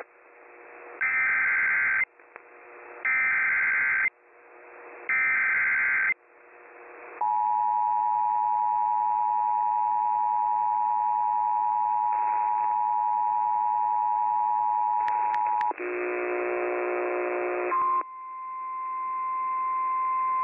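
Emergency Alert System activation opening a tornado warning. Three one-second screeching bursts of SAME header data come about a second apart, then the two-tone attention signal holds steady for about eight seconds. A brief buzzy tone follows, then from about 18 seconds in a single steady alarm tone.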